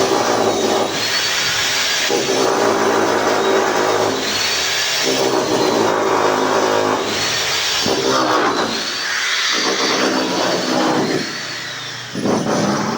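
A power tool running in bursts of one to two seconds, stopping and starting again several times.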